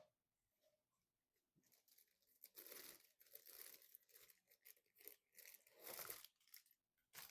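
Faint handling noise of crinkling and tearing: a longer spell about two and a half seconds in and a short one near six seconds.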